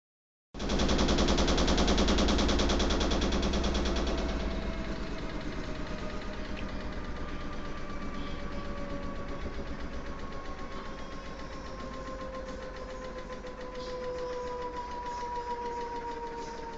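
Front-load washing machine in high-speed spin, its vibration setting up a fast, heavy rattle that starts abruptly, is loudest for the first few seconds, then eases off. Under the rattle a whine slowly falls in pitch. The shaking is the violent spin-cycle vibration the owner says is felt all through the house.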